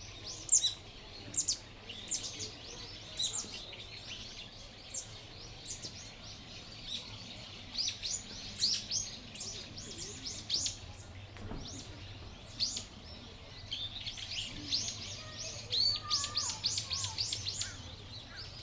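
Small birds chirping: many short, high chirps in quick runs, busiest near the end, over a faint steady low hum of background noise.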